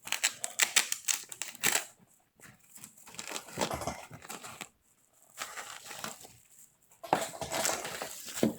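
Product packaging crinkling and rustling as it is handled by hand, in several bursts with short pauses between them.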